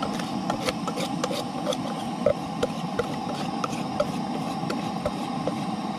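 Wire whisk clinking and scraping against a metal saucepan as thick cornbread batter is scraped out of it: irregular light metallic taps, two or three a second, over a steady rushing background.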